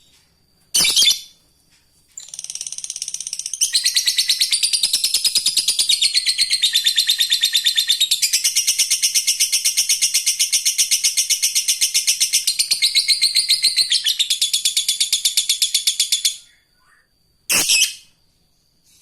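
Lovebird giving a short sharp call, then its long 'ngekek' song: a fast, high chattering trill held for about fourteen seconds, louder after the first second or so, ending with another short call.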